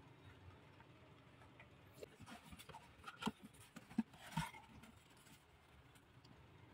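Tissue paper rustling and a plastic blister pack clicking and scraping as it is pulled out of a cardboard box. The handling noises come as a short cluster of rustles and clicks about two seconds in, lasting about three seconds, with faint room tone before and after.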